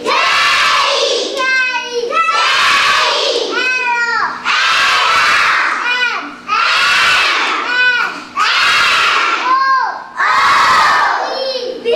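A class of children chanting loudly in unison, one shouted word or syllable about every second, as in a reading drill.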